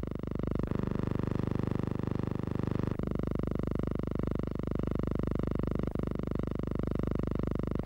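Steady hum and hiss of an old film soundtrack with no recorded sound on it, broken by small clicks at the splices where the shots change.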